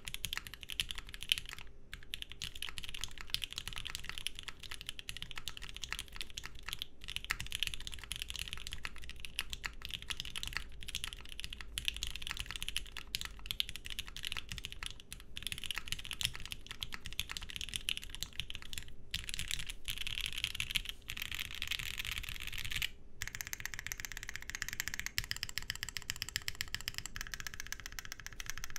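Fast, continuous typing on a Moontower 60% custom mechanical keyboard: H1 switches lubed with 205g0 and filmed, tuned clip-in stabilizers, aluminium plate and ePBT keycaps. There are a few brief pauses.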